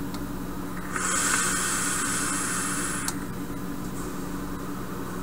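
A draw on a vape: air and the firing coil hiss steadily through a Medusa atomizer with a 0.18-ohm coil, run at 90 watts on a Hugo Vapor Boxer V2 box mod. The hiss lasts about two seconds and ends in a sharp click.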